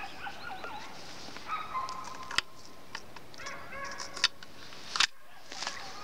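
Break-action shotgun being loaded and closed: three sharp metallic clicks, the loudest about five seconds in as the action snaps shut. Repeated short bird calls go on behind it.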